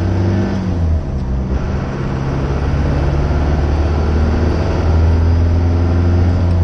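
Cummins turbo-diesel engine in a Ford F-150 pulling on the road, heard inside the cab. Its note drops with a brief dip about a second in, as at a gear change, then rises steadily as the truck gathers speed.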